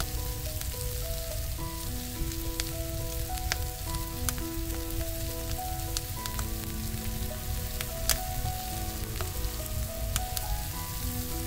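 Pork belly (samgyeopsal) sizzling steadily on a cast-iron cauldron-lid griddle, with occasional sharp pops, over a soft melody of held notes.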